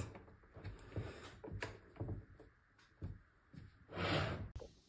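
Faint handling noises: light knocks and taps as the battery pack and its casing are handled on a tabletop, with a short rubbing or sliding sound about four seconds in.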